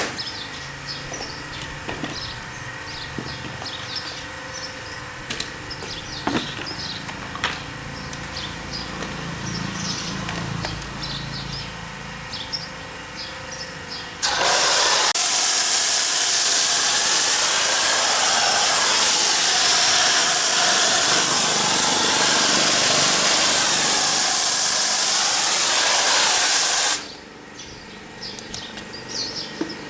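Birds chirping with a few light clicks, then about halfway through a high-pressure washer jet comes on with a loud steady hiss. It runs for about thirteen seconds and cuts off, leaving the birds chirping again.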